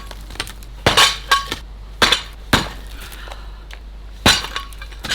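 A 3.6 kg Craftright sledgehammer striking brickwork: a series of sharp, hard knocks with the clink of broken brick pieces knocking together, the loudest blows about one second in and again just after four seconds.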